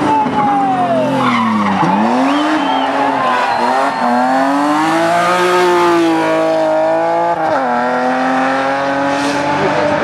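BMW E36 3 Series race car's engine at racing revs. The revs fall steeply to a low point about two seconds in, then climb again as it pulls away. They drop sharply at a gear change about seven and a half seconds in, then hold steady.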